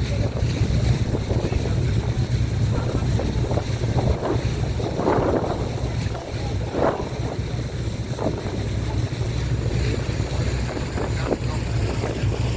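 Motorboat engine running steadily under way, a low drone, with water rushing and splashing along the hull and wind buffeting the microphone.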